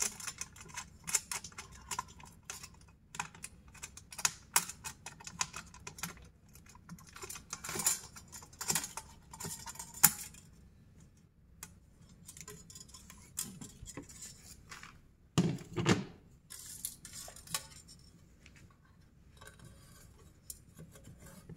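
Irregular light clicks, taps and small metallic clatter of hardware and light-fixture parts being handled during installation, with one duller knock about three-quarters of the way through.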